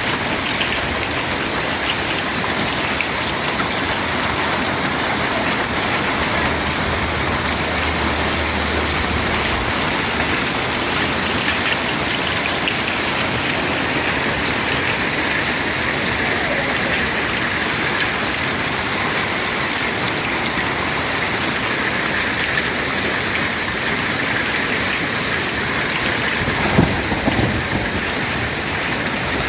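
Heavy rain mixed with hail pelting down steadily in a dense patter of small ticks, with a low rumble for a few seconds about a third of the way in and a single thump near the end.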